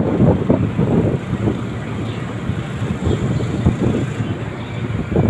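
Strong gusty wind buffeting the microphone: a loud, low, fluctuating rumble.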